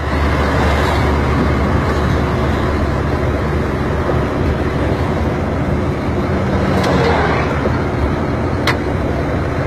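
FNM's engine running steadily at road speed, a low drone under tyre and road noise. There is a short sharp click near the end.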